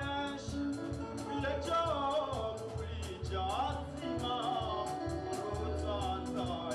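Twarab band music through a sound system: a man singing into a microphone over a steady beat of percussion and bass.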